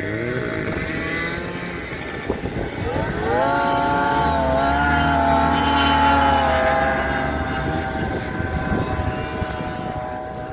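A racing motorboat's engine revving up about three seconds in, running at a high steady pitch, then slowly fading as it moves off.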